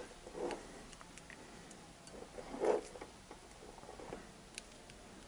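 Faint, scattered ticks and light clicks, with two slightly louder short knocks, one about half a second in and one near the middle.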